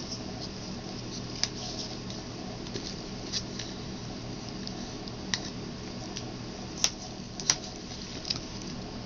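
Gloved hands handling a plastic paint cup and paint containers: faint crinkling and rubbing with a few sharp plastic clicks, the two loudest about seven seconds in, over a steady low hum.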